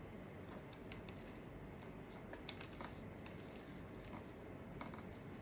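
Quiet room tone with a low steady hum and a few faint, scattered small clicks.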